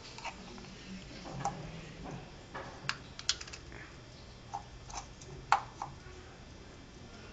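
Light, irregular clicks and taps, about a dozen scattered through, over a faint low background noise; the loudest click comes about five and a half seconds in.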